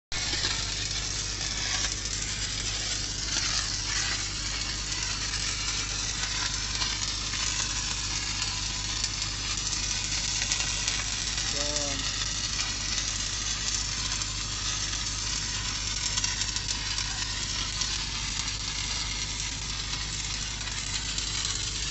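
Stick welding arc on steel pipe with a cellulosic electrode, crackling steadily like frying. A steady low hum runs underneath.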